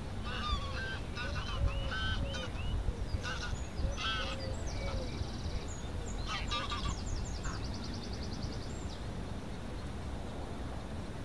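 Greylag geese honking as a flock flies over: a run of short calls through the first seven seconds or so, then thinning out. A faster, higher rattling sound comes twice in the second half, over a steady low rumble of wind.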